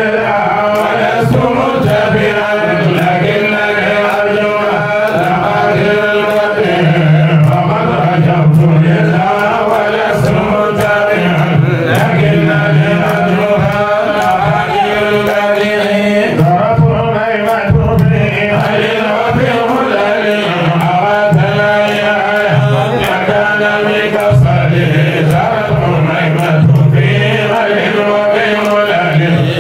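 A solo voice chanting a devotional religious song into a microphone, amplified and unbroken.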